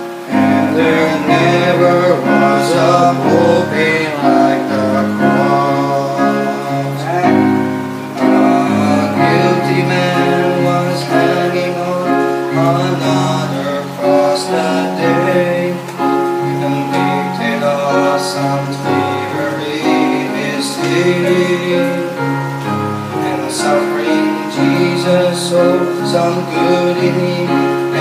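A man singing a slow gospel song into a microphone over instrumental accompaniment.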